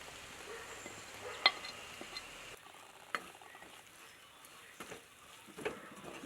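Ground spices and onions frying in butter and oil in a pan, sizzling softly as they are stirred, with a few short knocks of the stirring utensil against the pan. The spices are being roasted until their raw smell is gone.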